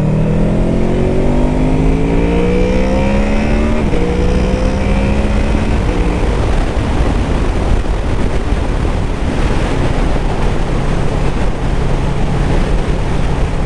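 Honda VFR800F's V4 engine accelerating away, its note rising, dropping briefly at a gear change about four seconds in and rising again. From about six seconds wind rush over the microphone covers the engine, which settles to a steady lower note at cruising speed.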